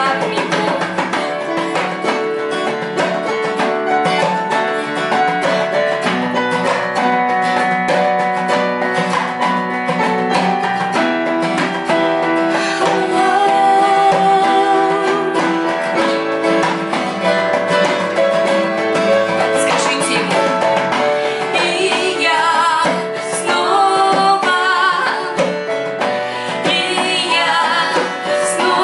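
A worship song sung by women's voices over a strummed acoustic guitar and keyboard, with the singing wavering most noticeably in the last several seconds.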